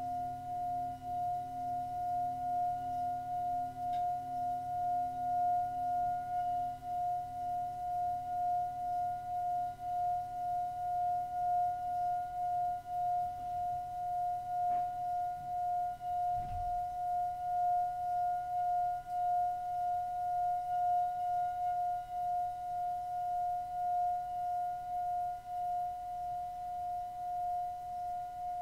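Singing bowl sounding one sustained ringing tone with a regular wavering pulse, about two a second, and faint higher overtones; a lower tone fades away in the first few seconds, and a soft low thump comes about two-thirds of the way through.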